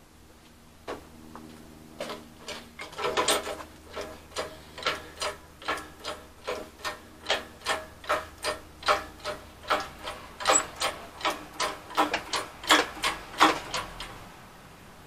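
Hydraulic engine crane's hand pump being worked to lift a hanging engine, its handle and linkage clicking in a steady run of two or three clicks a second. The clicking stops just over a second before the end.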